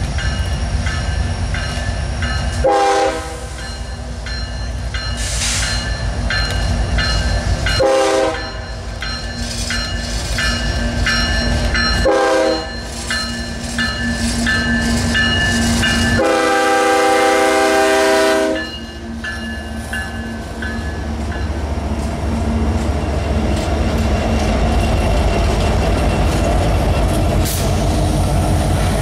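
Loaded coal train approaching and passing a grade crossing: the lead diesel locomotives sound their horn four times, three short blasts and then a long one of about two and a half seconds, over the engines' heavy low rumble and a steadily ringing bell. After the locomotives go by, the coal hopper cars roll past with wheel clatter.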